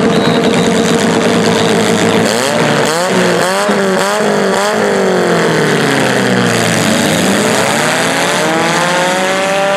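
Demolition derby cars' engines revving. A held steady note at first, then a run of quick blips of the throttle about three seconds in, then a long drop and a long climb in pitch as a car accelerates.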